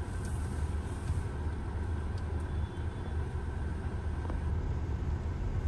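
Steady low cabin rumble of a 2024 Hyundai Creta automatic moving at low speed: engine and running noise heard from inside the car.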